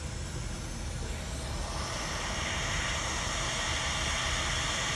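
Steady low fan rumble from micro-soldering bench equipment. An airy hiss swells in from about a second in and holds steady and fairly loud through the rest.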